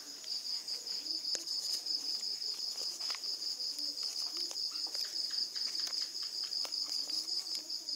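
Crickets trilling steadily, a high fast-pulsing chirp, with a few faint clicks mixed in.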